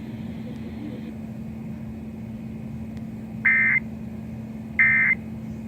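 Emergency Alert System SAME digital data bursts: two short, loud, buzzy bursts about 1.4 seconds apart, starting a little past halfway, over a steady low hum and hiss. Coming short and evenly spaced right after a warning message ends, they are the alert's end-of-message code.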